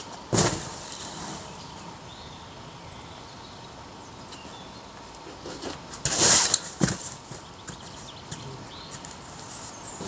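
A boulderer's forceful, hissing exhalations on hard moves, one near the start and a longer one around six seconds in, followed shortly after by a dull thud as he comes off onto the crash pad.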